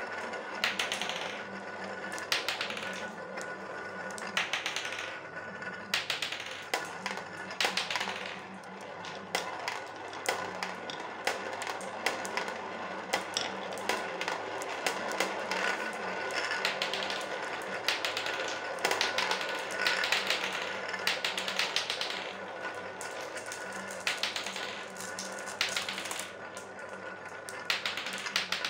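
Glass marbles rolling and circling in a plastic funnel bowl: a steady rolling rumble with many quick clicks as they knock against each other and the plastic.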